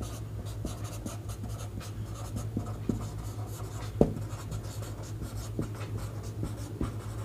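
Handwriting: a run of small scratching strokes and light taps of a pen on a writing surface, with one sharper tap about four seconds in, over a low steady hum.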